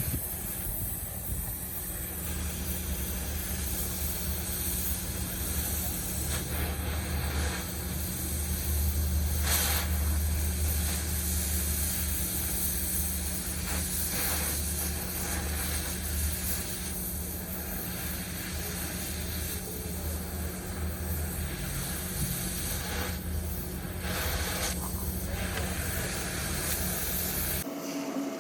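Machinery running steadily, a low hum under a constant hiss, until the sound changes abruptly near the end.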